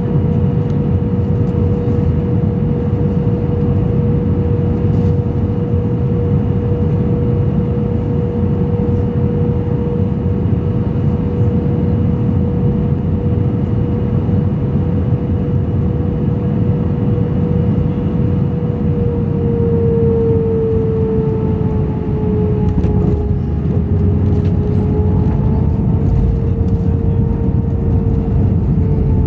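Airliner cabin noise on final approach and landing: jet engines and airflow make a steady loud drone with a humming tone, which shifts in pitch about two-thirds of the way in as the plane touches down and raises its spoilers.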